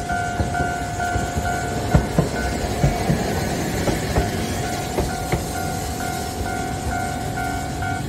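Japanese level-crossing alarm ringing its steady repeating electronic tone while a Kagoshima City Tram car rolls past over the crossing. Its wheels click sharply over the rail joints several times in the middle, where the rolling noise partly drowns the alarm.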